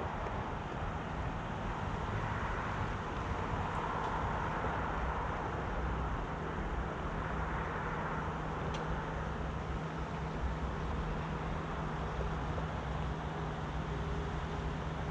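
Chevrolet Silverado ZR2 pickup's 6.2-litre V8 running at low revs as the truck crawls slowly up a rocky dirt trail, a steady low hum under an even rush of noise.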